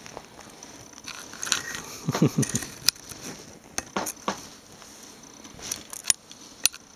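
Close rustling and scattered sharp clicks as a white rabbit nudges and noses against the camera and a hand on bedding, with a burst of rubbing about two seconds in.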